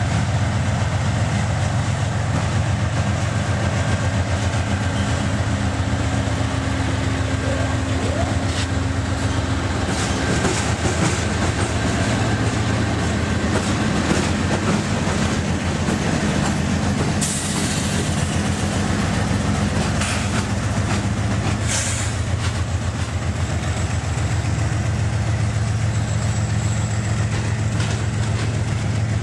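Train running along the track with a steady, loud, low rumble and wheel noise. Short high-pitched bursts come twice a little past halfway.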